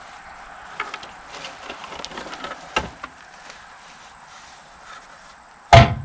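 Scattered knocks and clatter from wood and metal being handled while a big oak log is set up on a sawmill bed, with one loud thump near the end. Insects chirp steadily in the background.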